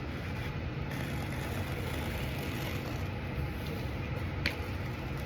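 Steady low room hum, with one sharp click about four and a half seconds in.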